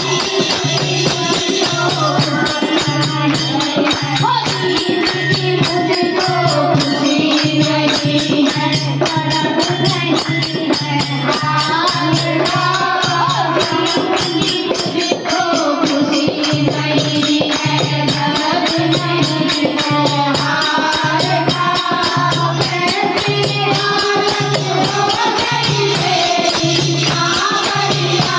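Group of women singing a Hindi bhajan in unison, with hand clapping and small brass hand cymbals (manjira) jingling on a steady beat. A low pulse a little more than once a second keeps time and drops out briefly about halfway through.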